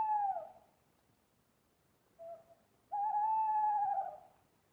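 Owl hooting: a long held hoot trails off just after the start, a short lower note sounds about two seconds in, and a second long hoot of about a second and a half follows, its pitch slipping down at the close.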